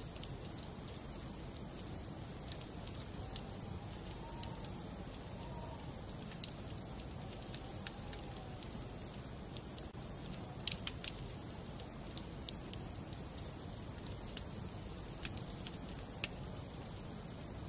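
Wood fire burning in a fireplace: a steady low rumble of flames with irregular sharp crackles and pops from the burning logs, and a faint wavering whistle for a few seconds near the start.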